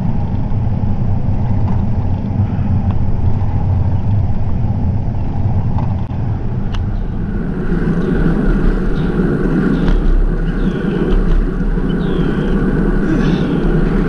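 Steady low rumble of riding a bicycle, wind and road noise on the microphone, growing fuller about halfway through.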